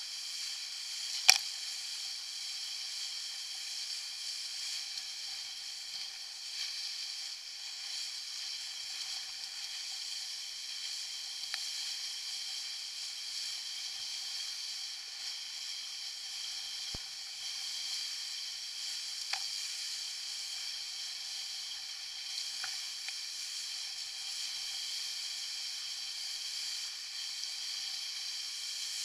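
Steady hiss of water and spray rushing past a Topper Buzz dinghy's hull as it sails fast in a strong breeze, with one sharp click about a second in and a couple of faint ticks later.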